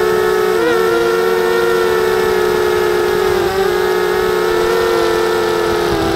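Motors and propellers of a 250-size FPV quadcopter in flight, heard from its onboard camera: a steady high whine of several close pitches that dips briefly as the throttle changes, about two-thirds of a second in and again about three and a half seconds in.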